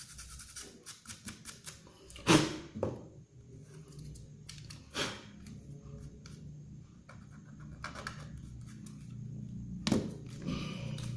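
Small clicks and a few sharper knocks of tools and parts being handled while a smartphone is taken apart and cleaned, with a low steady hum coming in about halfway through.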